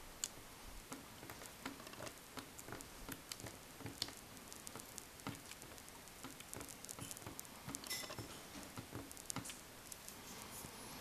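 Faint, irregular clicks of the HP iPAQ 2200 Pocket PC's plastic hardware buttons and navigation pad being pressed one after another.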